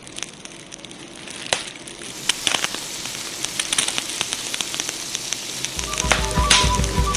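Pieces of meat deep-frying in a pot of bubbling fat over a wood fire: a steady sizzle with many sharp crackles and pops, growing louder. Music with a repeating low beat comes in near the end.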